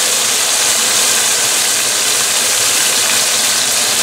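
Floured, pounded-thin chicken thighs frying in olive oil on a high flame: a loud, steady sizzle, with the range hood fan running.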